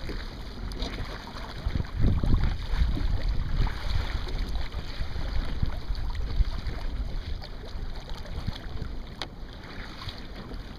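Wind buffeting the microphone in gusts, with water rushing and splashing along the hull of a Sunfish sailboat under way. The gusts ease over the last few seconds.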